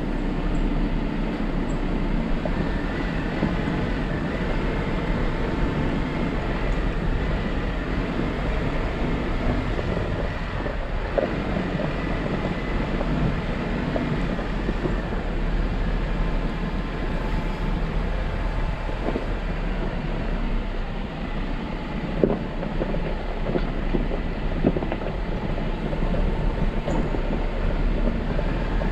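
Jeep Wrangler driving on an off-road forest trail: a steady low rumble of engine and tyres on the trail, with a few short knocks and rattles along the way.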